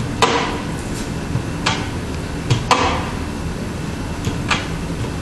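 Sharp clicks or knocks with short ringing tails, a handful of them about a second apart, over a steady low hum. They come from the pneumatic screen-stretching clamps and frame as the air pressure is raised and the mesh tension climbs.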